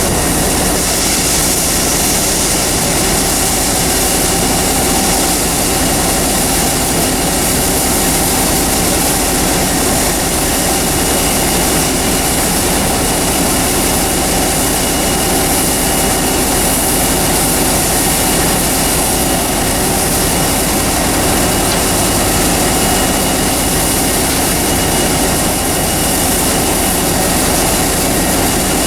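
Combine harvester running steadily under load, engine and threshing machinery giving a loud, even mechanical noise.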